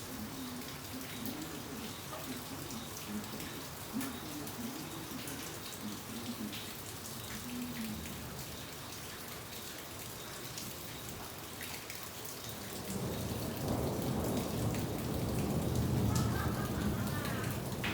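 Steady rain falling, with individual drops ticking. About two-thirds of the way through, a low thunder rumble swells up and is loudest near the end.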